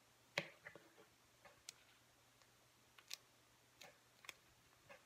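Faint scattered taps and clicks, about half a dozen, the loudest about half a second in: fingers pressing down freshly glued paper folds on a tabletop.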